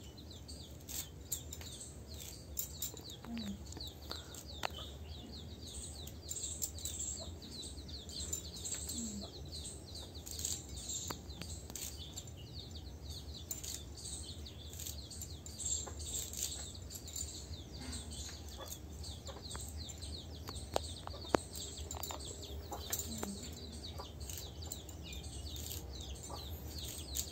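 Small birds chirping over and over, with a few low clucks from chickens, over soft snaps and rustles of moringa leaves being stripped by hand from their stems.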